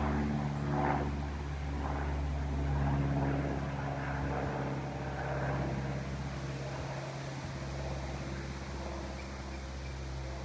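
Light propeller aircraft's piston engine running steadily, with an even low drone that gradually fades toward the end.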